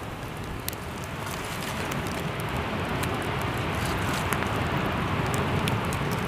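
Open wood campfire burning: a steady rush with scattered sharp crackles and pops from the burning branches.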